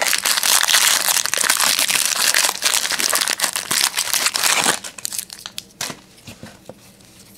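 Foil wrapper of a trading-card pack crinkling and crackling as hands work it open. The crinkling stops a little over halfway through, leaving a few light clicks of handling.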